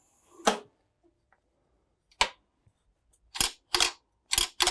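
Sharp metal clicks and clacks from parts of a Linotype machine being handled by hand: one, then another, then four close together near the end.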